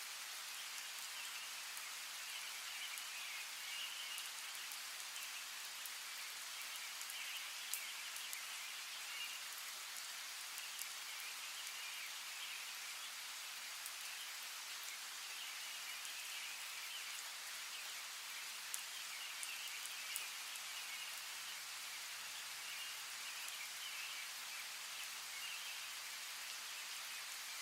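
Steady hiss of rain, with scattered sharp ticks of drops and a high chirring chorus that swells and fades every second or two.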